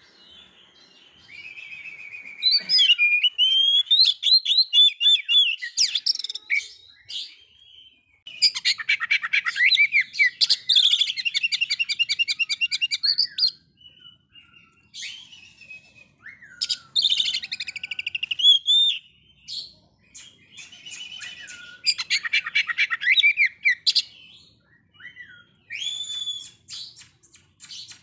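Male Oriental magpie-robin singing: loud, varied phrases of clear whistles and fast chattering trills, broken by short pauses, with a long run of rapidly repeated notes about a third of the way in.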